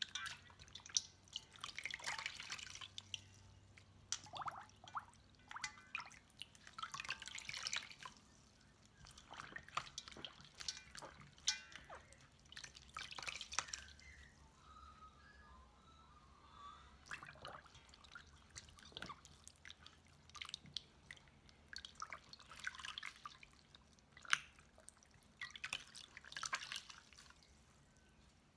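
Water splashing and dripping as a wet felted wool pouch is dunked, squeezed and lifted in a stainless steel bowl, in irregular bursts with a quieter stretch about halfway through. This is the hot-and-cold water shocking that fulls and stiffens the felt.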